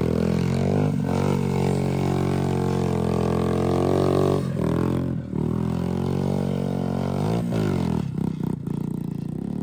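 A vehicle engine running steadily with a low droning note, with a few brief dips in the sound.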